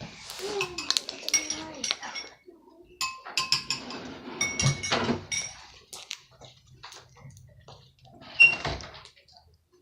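Metal spoon clinking and scraping against a bowl as slime is stirred, in a run of irregular sharp clinks with brief ringing. One louder knock comes near the end.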